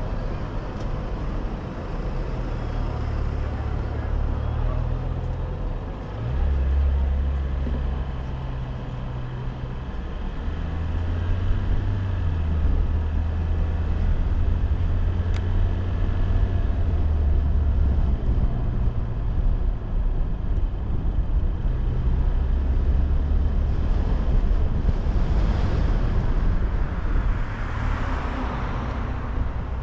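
Low rumble of a car driving slowly, picked up by a camera mounted on the car. Near the end another vehicle passes close alongside, with a swelling tyre and road hiss.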